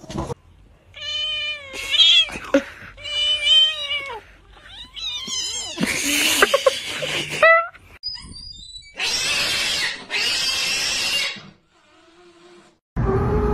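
A domestic cat yowling in a series of long, wavering calls, followed by two long hisses.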